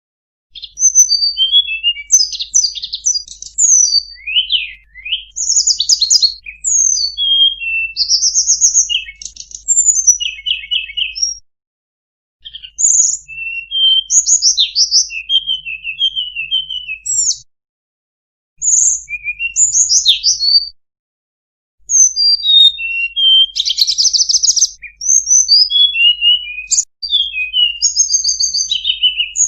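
Tledekan gunung (mountain flowerpecker) song: rapid, high chirps, trills and short buzzy notes in quick phrases, broken by a few brief pauses.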